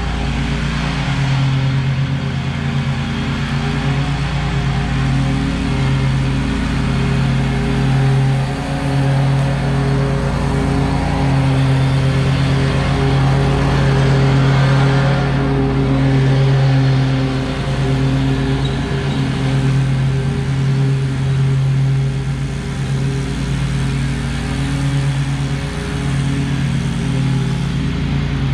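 Stand-on commercial lawn mower's engine running steadily under load while it mows, a little louder as it passes close about halfway through.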